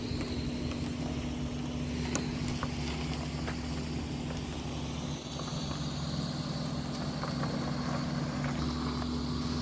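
Honda Odyssey minivan's V6 engine running at low speed, a steady even hum.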